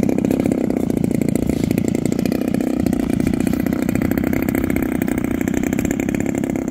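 Small combustion engine of a Factor 3D aerobatic RC model airplane idling steadily on the runway, a fast, even run of firing pulses that does not rise or fall.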